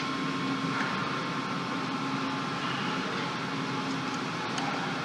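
Steady mechanical hum: an even noise with a few constant tones running under it, unchanging throughout, with a couple of faint ticks near the end.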